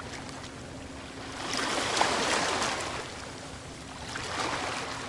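Sea waves washing in: one larger swell rises about a second and a half in and fades by three seconds, and a smaller one follows near the end, over a faint steady low hum.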